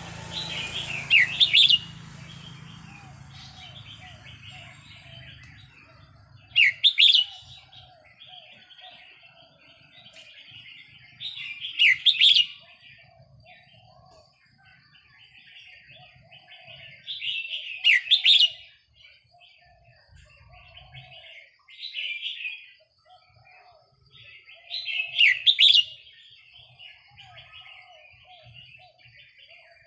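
Caged red-whiskered bulbul singing short, loud, rising-and-falling song phrases about every five to six seconds. Quieter chattering bird calls carry on between the phrases.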